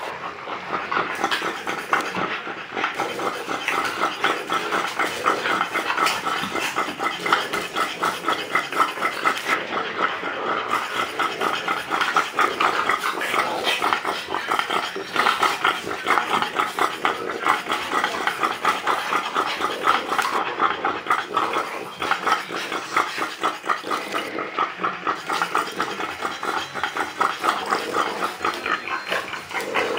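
French Bulldog panting hard: fast, rhythmic, noisy breaths that keep going without a break.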